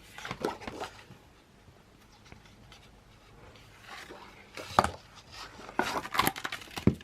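A paper calendar being handled and its pages turned: light rustling with a few sharp taps, quiet for a couple of seconds in the middle.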